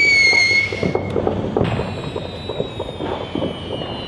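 Fireworks: a high whistling firework tone, slowly falling, fades out about a second in, and a second, fainter whistle slides down in pitch after it, over continuous crackling and popping.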